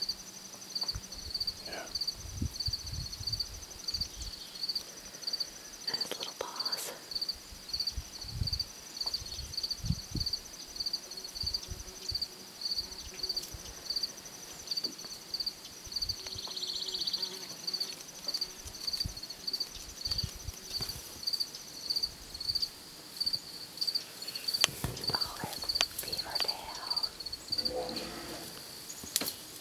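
Insects chirping in a steady high pulse, about twice a second. A second, higher insect call stops about two-thirds of the way through. Occasional low rustles and knocks come and go.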